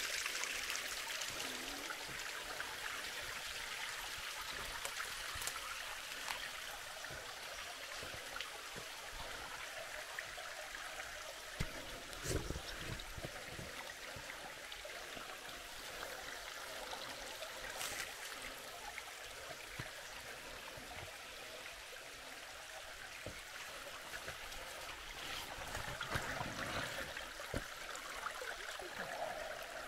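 Creek water running and trickling over rocks as a steady rush, a little louder at the start. A few short knocks cut through it, the clearest about 12 and 18 seconds in.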